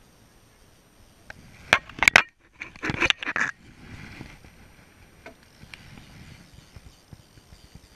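Close knocks and rattles about two seconds in, then a second of rough scraping, as a landing net is picked up and its handle knocks and scrapes against the aluminum boat.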